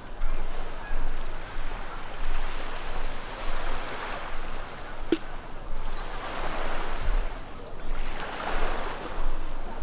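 Surf washing up on the beach, a noisy wash that swells and falls back as each wave comes in, every second or two.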